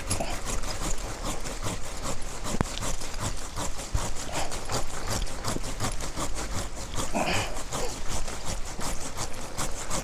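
Curved pruning saw cutting through a kurogane-mochi (Ilex rotunda) branch by hand, in a quick, even run of back-and-forth strokes.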